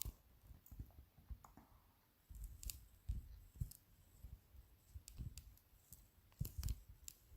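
Faint, scattered clicks and small knocks of a device being handled and clicked through, with no steady sound under them.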